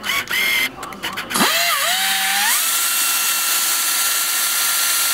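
Pneumatic cut-off tool (straight air die grinder with a small cutoff wheel) running free, with its air motor freshly oiled. It gives two short bursts of air hiss, then about a second and a half in it spins up with a rising whine that wavers briefly and settles into a steady high whine over the rush of exhaust air.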